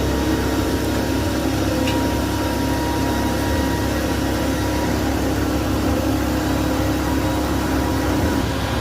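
Industrial machinery running steadily: a constant low hum with a few held tones over an even mechanical noise.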